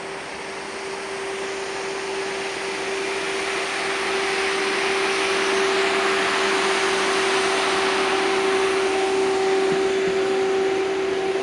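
Electric tram running close by: a steady whine over a rushing rolling noise that grows louder over the first four seconds or so, then holds. A second, higher whine joins about four seconds in.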